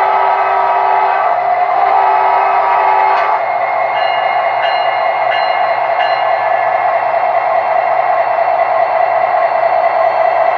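Sound decoder in an O scale brass SD70 model locomotive playing diesel sounds through its small speaker as the model runs: a multi-note horn sounds over a steady engine drone and stops about three seconds in, then four short ringing dings come about two-thirds of a second apart while the drone goes on.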